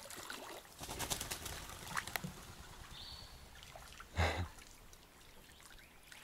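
Water splashing and sloshing as a small dog wades off the bank into a pond and swims, with scattered splashes and drips through the first couple of seconds. About four seconds in there is a single louder burst of noise.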